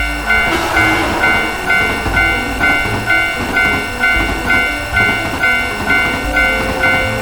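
Japanese railroad crossing alarm ringing steadily, a little over two strikes a second, while a train passes with dense rumbling and rattling.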